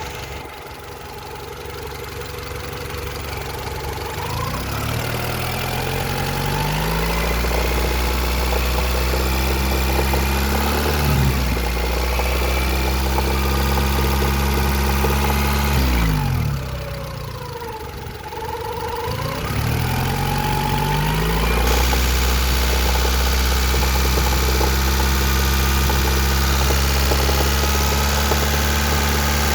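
Honda F22A1 2.2-litre four-cylinder engine running with a knocking noise. The revs rise and are held, drop back about halfway through, then rise and hold again. The owner places the knock at the top of the engine around cylinders 3 and 4 with valve lash in spec, and suspects piston slap or a connecting rod bearing.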